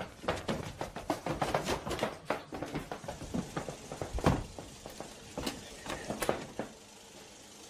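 A rapid, irregular run of clicks and knocks, several a second, that thins out and stops near the end.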